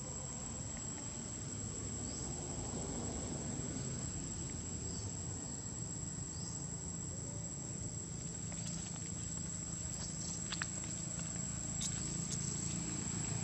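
Steady high-pitched insect drone, with a few short rising chirps in the first seven seconds and scattered light clicks in the second half.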